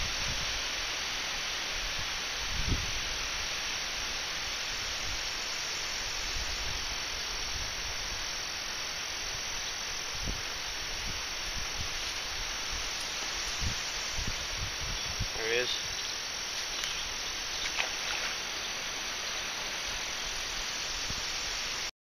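Steady high-pitched chorus of summer insects in the grass, with a few soft low thumps and a brief wavering chirp about two-thirds through; it cuts off abruptly near the end.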